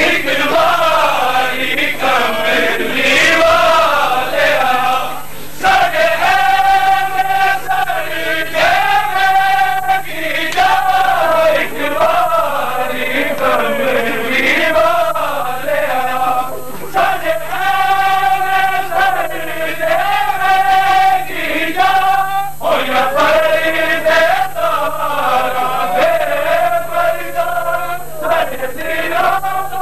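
Male voices chanting a Punjabi noha, a Shia lament for the infant killed by a three-pointed arrow, in repeating melodic phrases with brief breaks between them. A steady low hum runs beneath.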